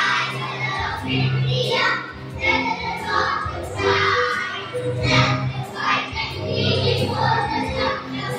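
A group of young children singing a patriotic song together, over musical accompaniment.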